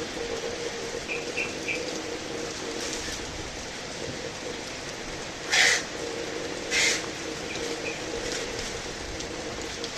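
Heavy rain falling steadily, with three short high chirps about a second in and two brief louder rushes of noise in the middle.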